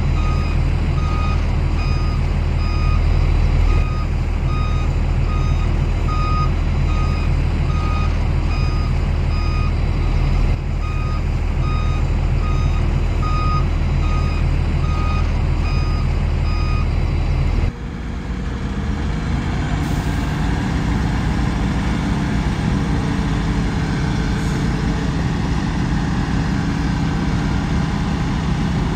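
Reversing alarm on a heavy earthmoving machine beeping at an even rate over its diesel engine running. A little past halfway the beeping stops abruptly and the engine sound changes, and a steady diesel engine runs on to the end.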